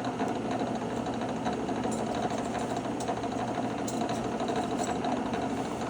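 Bench drill press running steadily, its electric motor and spinning chuck giving an even hum.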